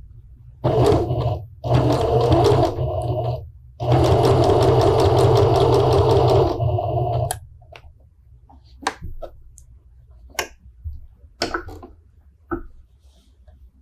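Electric domestic sewing machine stitching fabric, running in three spells that start and stop abruptly over the first half, then scattered light clicks through the rest.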